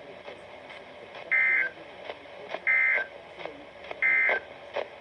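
Emergency Alert System SAME digital data tones: three identical short warbling bursts about a second and a half apart, the End of Message (NNNN) code that closes the tornado watch alert, over a faint radio hiss.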